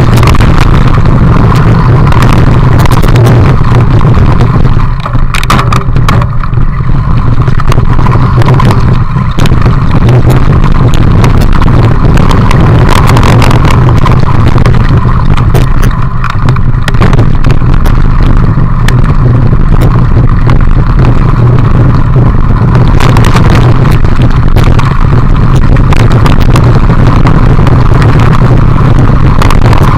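Mountain bike riding over a gravel and dirt trail: a loud, steady rumble of wind and tyre noise on the bike camera's microphone, with frequent rattles and clicks from the bike over stones.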